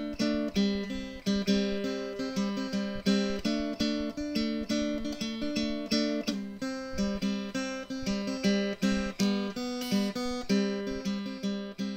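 Background music: acoustic guitar, plucked notes in a steady rhythm.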